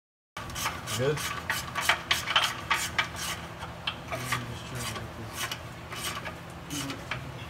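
Hand-work scraping and rubbing on the engine's metal underside: a string of short, irregular scraping strokes.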